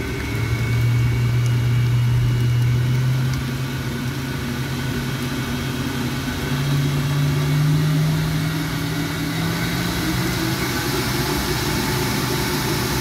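Kenwood stand mixer motor running with its flat beater kneading a wet sourdough starter. The motor hum steps up in pitch as the speed is turned up, once about half a second in and again around six and a half seconds.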